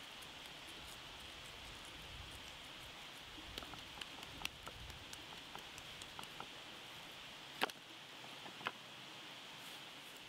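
Coarse smoked salt pattering in light scattered ticks onto a raw pork tomahawk steak on a wooden board, then a hand rubbing the salt into the meat, with two sharp clicks about a second apart, the louder one first. A steady high hiss runs underneath.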